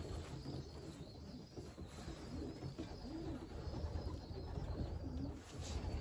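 Racing pigeons cooing, several low coos that rise and fall one after another over a low background rumble.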